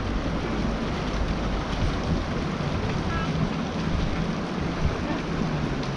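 Steady rushing of a small creek's flowing water, with wind rumbling on the microphone.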